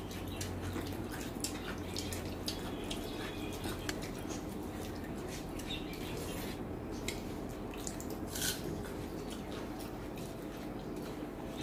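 Eating sounds: scattered soft wet clicks and ticks of rice and curries being mixed and eaten by hand from a plate, with chewing, over a low steady hum.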